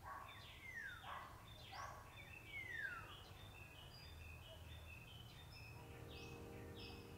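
Several wild birds chirping: a few clear whistles that slide down in pitch in the first three seconds, among many short, high chirps.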